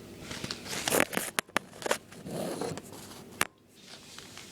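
Small handling noises: a few sharp clicks and crackles, with short rustles, the sharpest click about three and a half seconds in.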